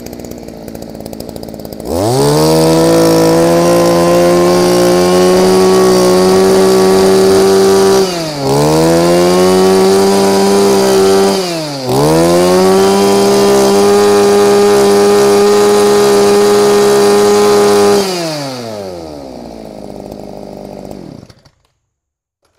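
Echo 26cc two-stroke brush cutter engine idling, then revved to full throttle three times, with brief drops in pitch about 8 and 12 seconds in. It falls back to idle and is switched off about 21 seconds in.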